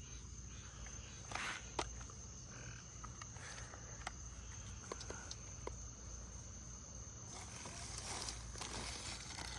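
Faint clicks, taps and rustles of chainsaw parts and packaging being handled, over a steady high-pitched whine and a low background hum.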